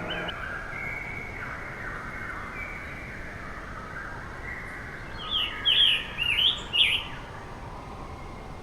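A scarlet tanager singing: about five seconds in, a short quick phrase of about five slurred, arching notes, the loudest sound here. Other birds call steadily in the background.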